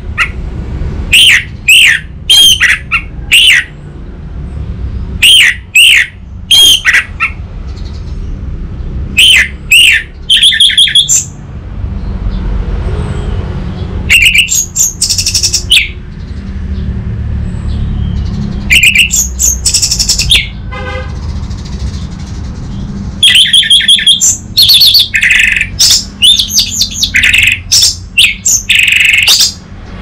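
Orange-headed thrush singing in loud phrases of sharp, repeated notes that dip in pitch, with short pauses between phrases and a brief rattling trill about two-thirds of the way through. A steady low rumble runs underneath.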